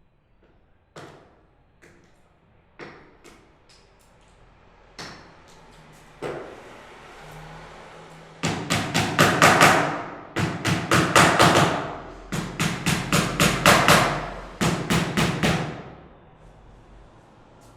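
Hammer driving nails into a wooden door: a few scattered light taps first, then, from about halfway in, four runs of quick, hard blows, about four or five a second, each run lasting a second or two.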